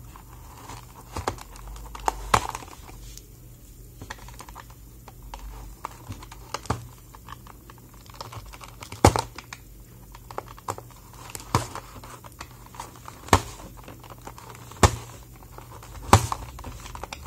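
Fingernails picking and scratching at sticky tape sealing a cardboard box, with scattered sharp clicks and taps as the box is turned in the hands.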